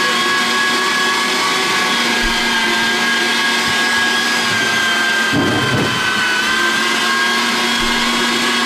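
Electric meat grinder running steadily with a motor whine as chicken meat is fed through and minced. The whine dips slightly about six seconds in, just after a short burst of lower, rougher noise.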